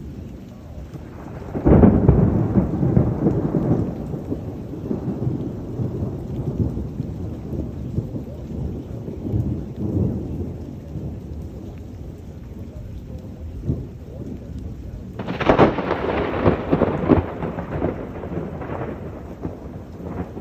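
Two loud claps of thunder in a severe thunderstorm: the first breaks suddenly about two seconds in and rumbles away over several seconds, the second comes about fifteen seconds in and rumbles for about three seconds. Steady rain falls throughout.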